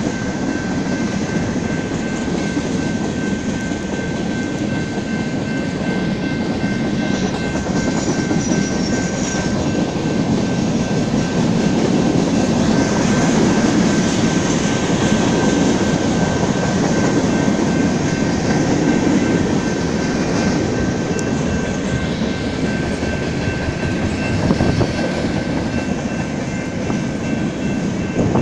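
BNSF freight train's cars rolling past on the rails: a steady rumble of steel wheels with a thin, steady high tone over it.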